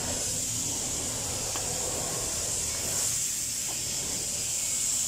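Steady hiss, with a faint light click about one and a half seconds in.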